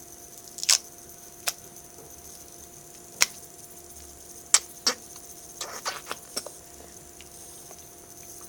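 Sharp crackles and clicks from a snack and its packet being handled: several single ones, then a quick cluster about six seconds in.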